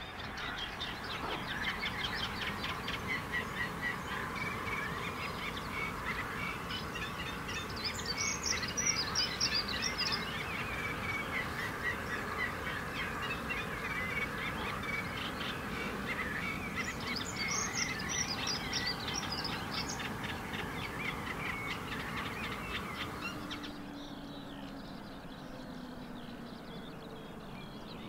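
Dawn chorus of many songbirds singing at once over a reedbed, a dense mix of chirps and trills. One loud, high trilling phrase comes twice, about nine seconds apart. About four-fifths of the way in, the chorus drops away suddenly to a quieter background.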